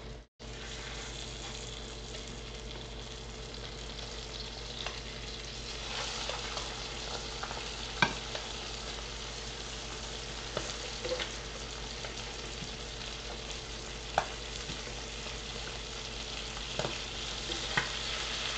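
Soy-marinated chicken pieces sizzling as they fry in butter in a hot electric skillet set to 400°F, the sizzle growing louder about six seconds in. Tongs knock sharply against the pan and the chicken a handful of times as the pieces are laid in skin side down.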